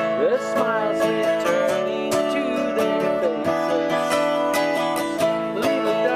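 Acoustic guitar strummed in a steady rhythm, chords ringing on between the strokes.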